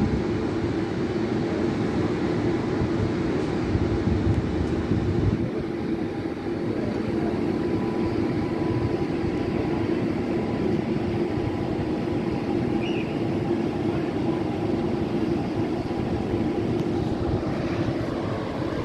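Electric rail vehicles running with a steady hum: the Aubagne tram moving along its track, and later a Z 23500 double-deck TER electric train.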